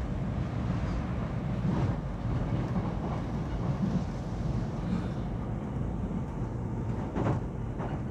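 Subway train running over the rails, heard from inside the carriage: a steady low rumble with a couple of wheel clacks near the end.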